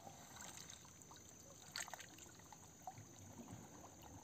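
Faint sloshing and trickling of pond water as a man wades chest-deep and gropes along the muddy bottom with his hands, with one brief louder tap about two seconds in.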